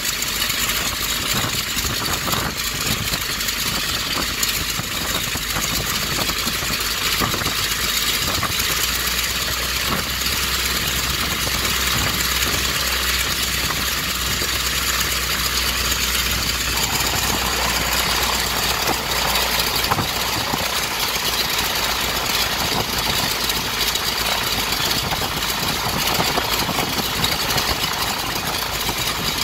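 Wright Whirlwind R-760-8 seven-cylinder radial engine of a 1929 Taperwing WACO biplane idling steadily, turning a 99-inch Hamilton Standard propeller, on its first run after a complete restoration.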